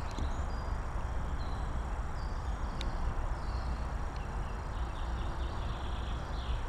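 Outdoor woodland ambience: a steady low rumble with small birds chirping in short high notes, and a couple of light clicks as the camping stove's metal parts are handled.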